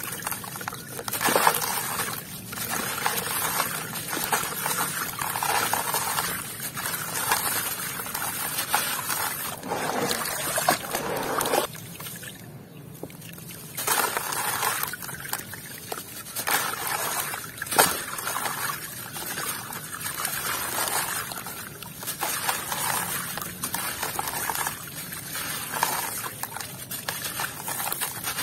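Wet gritty sand block crumbling in the hands, grains and water trickling and pattering down into a basin of water, with sloshing as the hands work. The noise comes in waves with the squeezing and eases off briefly about twelve seconds in.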